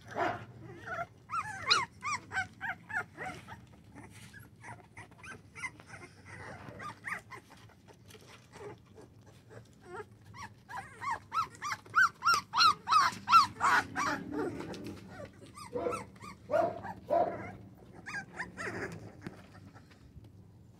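Four-week-old American bully puppies whining and crying in quick runs of short, high cries. The cries come thickest about a second in and again a little past the middle, with scattered small clicks between.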